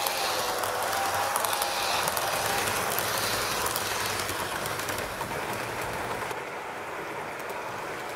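HO scale model train running on the layout track: a steady rolling noise with light clicking of the wheels over the rail joints, a little quieter after about six seconds.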